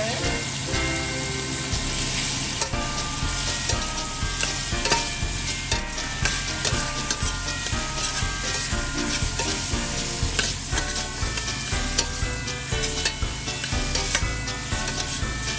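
Diced chicken and ham sizzling in hot olive oil in a stainless steel pressure cooker pot, stirred with a slotted spatula that scrapes and clicks against the pot's side and bottom.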